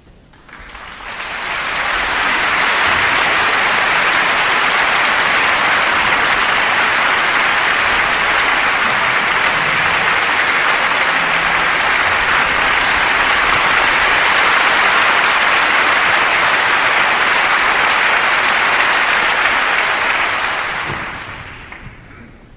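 Concert hall audience applauding, welcoming the conductor onto the podium before the performance. The applause swells about a second in, holds steady, and dies away near the end.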